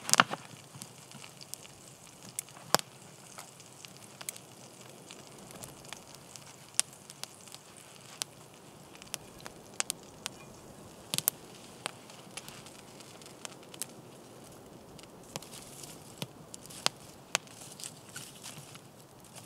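Wood campfire crackling: irregular sharp pops and snaps over a faint steady hiss, the loudest pop right at the start.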